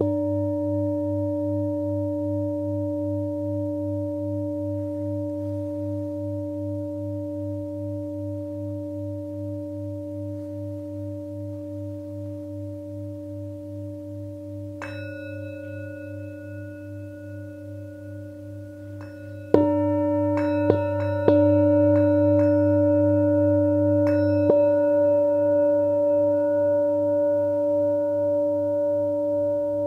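Singing bowls struck and left ringing in long, overlapping tones that waver slowly in loudness. One is struck at the very start and a softer one about halfway through. A loud strike comes about two-thirds of the way in, followed by a few lighter strikes over the next several seconds.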